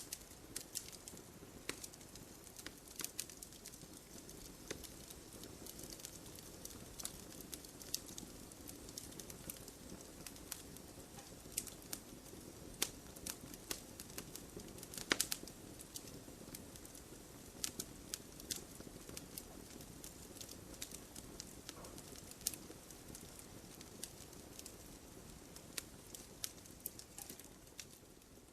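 Campfire of burning wood crackling: irregular sharp pops and snaps over a soft, steady rush of flame, with the loudest pop about halfway through.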